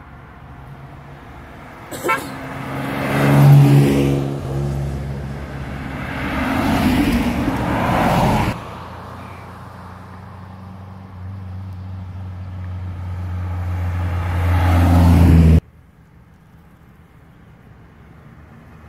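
Car engines going past one after another, each growing louder as the car comes near. The sound breaks off suddenly twice, the last time while an approaching engine is at its loudest.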